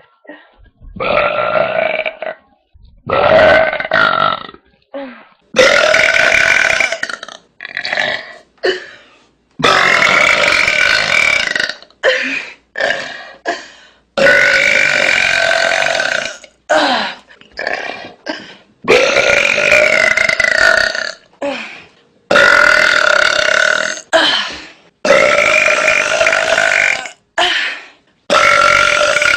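A woman belching loudly, over and over, in man-like belches: a long run of drawn-out belches, many lasting one to two seconds, with short breaks between them.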